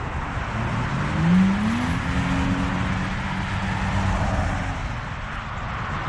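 A motor vehicle's engine rising in pitch for about a second, then holding a steady note, over a steady rushing hiss of traffic noise.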